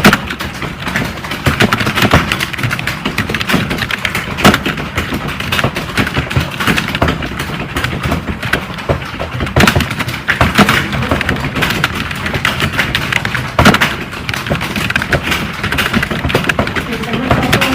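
Computer keyboard typing: a rapid, irregular stream of key clicks with occasional louder strikes, a few seconds apart.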